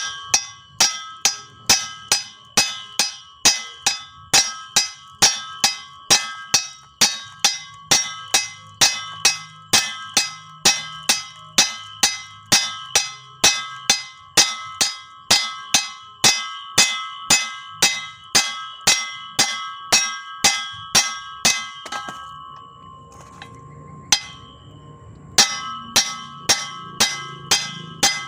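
Claw hammer striking the steel flange yoke of a Toyota Kijang propeller shaft to knock out its cross joint, in a steady run of about two to three blows a second, each ringing like a bell. The blows pause for about three seconds near the end, then start again.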